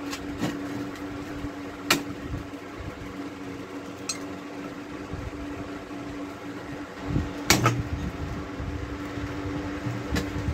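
Steady hum of a small motor, with a sharp knock about two seconds in and a short cluster of knocks about seven and a half seconds in.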